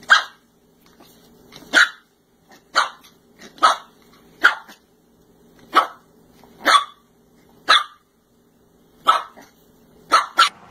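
Puppy barking at a tennis ball in a string of short, high, sharp barks, about eleven of them roughly a second apart, the last two close together.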